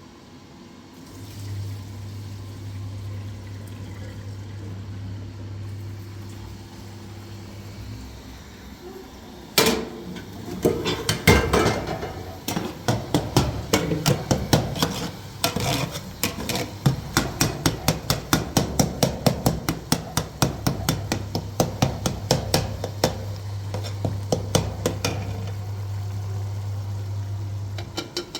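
A long run of sharp, evenly spaced knocks, about two or three a second, starting about ten seconds in after a single knock. A steady low hum runs under the first few seconds and again near the end.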